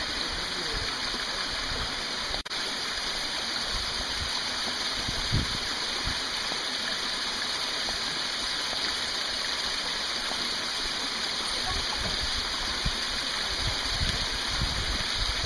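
Waterfall pouring down a rock face into a canyon: a steady rush of falling water.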